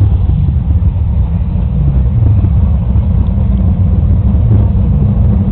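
Car engines at a drag strip running with a loud, steady, bass-heavy rumble.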